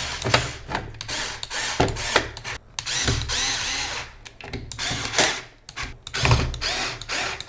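Cordless drill-driver running in several short bursts as it drives screws into a DeLonghi Dedica espresso machine's housing, with sharp clicks between the runs.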